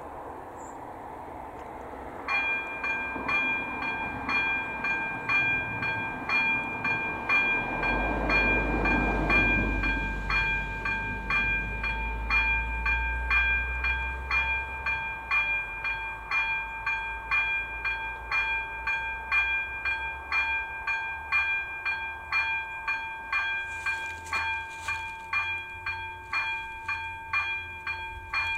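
Electronic warning bell (AŽD ZV02) of a Czech level-crossing signal starting up about two seconds in and ringing at about two strokes a second: the crossing has been activated for an approaching train. A low rumble swells and fades under it in the first half.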